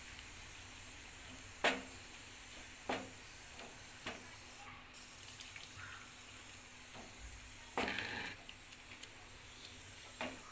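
Water poured from a plastic jug into a hot pan of sautéed drumstick leaves, a low steady pour and hiss, with a few short sharp knocks and a brief scraping burst of the wooden spatula stirring in the pan.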